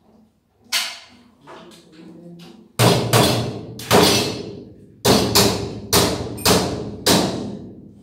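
A series of sharp knocks, one under a second in and then about nine louder ones from nearly three seconds on, each with a short ringing decay, coming roughly twice a second near the end.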